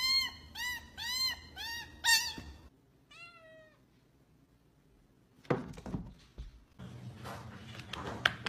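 Kitten meowing: about five short, arched meows in quick succession over the first two seconds, then one fainter meow just after three seconds. From about five and a half seconds on come scattered knocks and thuds.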